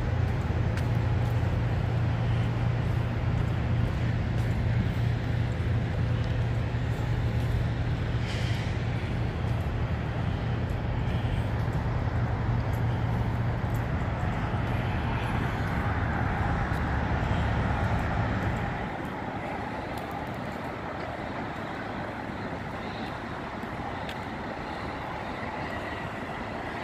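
Steady low rumble of a diesel semi-truck engine idling in a truck-stop parking lot. It drops away abruptly about two-thirds of the way through, leaving a quieter background of distant vehicle noise.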